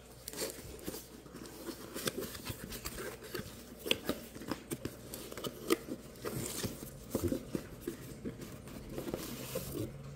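Cardboard box being opened by hand: flaps pulled open and cardboard scraping and rustling, with irregular small taps as the inner box is slid out and handled.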